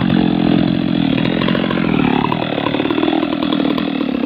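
Stihl MS 660 two-stroke chainsaw running at high revs in the cut at the base of a large tree trunk. About halfway through the revs drop and it settles into an uneven, pulsing idle as the saw is lifted out.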